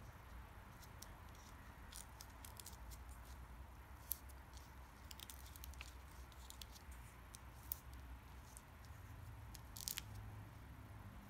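Faint, scattered clicks and rustles of paper handling: foam adhesive dimensionals being peeled off their backing sheet and pressed onto a cardstock punch-out. A low steady hum runs underneath.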